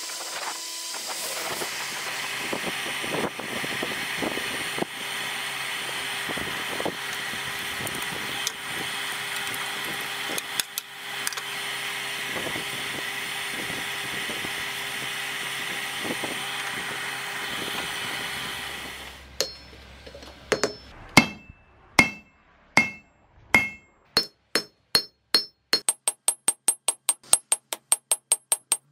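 A coke forge's air blower running with a steady hiss and hum. After about nineteen seconds it stops, and hammer blows land on steel on an anvil, each one ringing, first spaced out and then in a fast, even run of strikes near the end.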